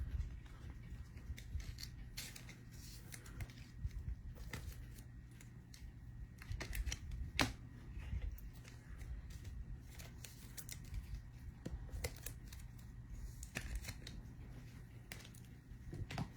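Trading cards and pack wrappers being handled: scattered light rustles, clicks and slides of cards over a faint low hum.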